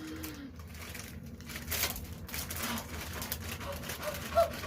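Plastic snack-chip bag crinkling and rustling, handled in irregular bursts. A few short squeaky sounds come near the end.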